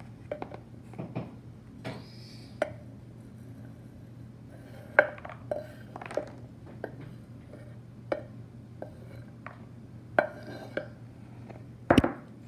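Large metal spoon scraping and clinking against a wooden cutting board and a plastic bowl as chopped fruit is pushed into the bowl, in scattered knocks about once a second. A louder clatter of knocks near the end.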